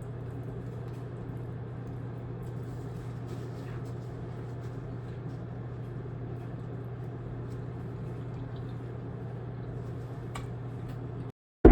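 Room tone: a steady low electrical hum under a faint even background noise, with a few faint clicks and one sharper click near the end.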